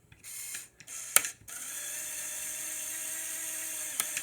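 Lego Power Functions medium motor driving a small linear actuator that shifts the differential lock out of engagement. It gives two brief whirs and a click, then a steady whir for about two and a half seconds that stops abruptly with a click.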